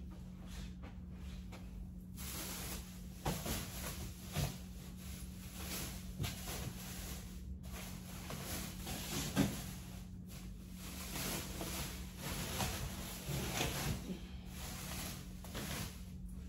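Rustling, scraping and clattering of items being handled and moved about while unpacking, with a few sharper knocks, over a steady low electrical hum.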